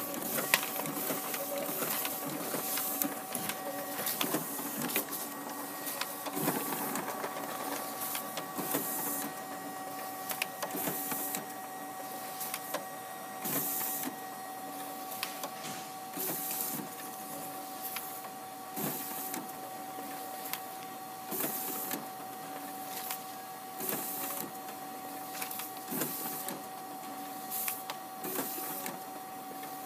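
Kodak 9125c high-volume document scanner feeding and scanning a stack of paper in colour duplex at 300 dpi: a steady motor whine with a short swish as each sheet is pulled through, about one a second.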